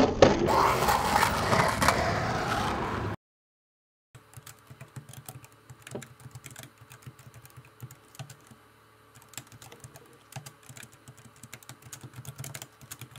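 Skateboard rolling and clattering on a concrete bowl, loud, cutting off abruptly about three seconds in. After a second of silence, a laptop keyboard is typed on in quick, irregular clicks.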